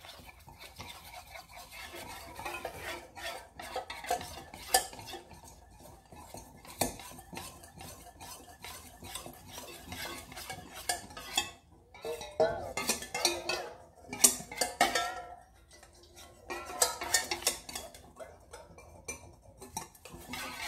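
A utensil stirring a thin mix of cornstarch, lemon juice and warm water in a stainless steel mixing bowl, dissolving the cornstarch: a run of quick, irregular clinks and scrapes against the metal bowl, with two brief pauses.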